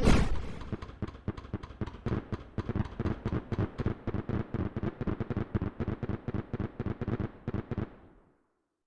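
Fireworks: a loud bang at the start, then a fast run of crackling pops, several a second, that fades away and stops about eight seconds in.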